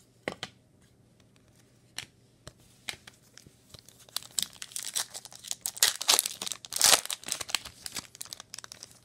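Foil wrapper of a trading card pack crinkling and tearing as it is opened. A few light clicks come first, then the crackling sets in about four seconds in and is loudest around six to seven seconds in.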